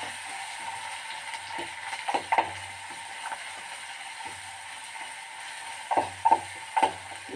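Ginger-garlic paste and green chillies sizzling in hot oil in a metal kadhai, lightly fried for a spiced potato filling, while a metal spoon stirs them. The spoon scrapes and clinks against the pan twice about two seconds in and several times near the end.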